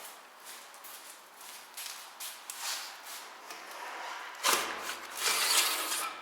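Handling noise: light clicks and rustling, then a louder rubbing, scraping stretch from about four and a half seconds in.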